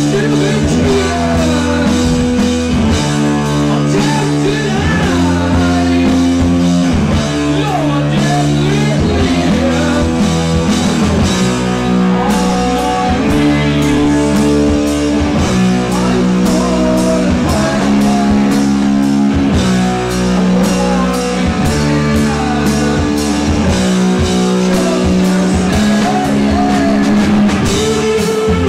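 Live heavy rock band playing a riff on distorted electric guitars, bass guitar and drum kit, the chords changing about every second, with a man singing over it.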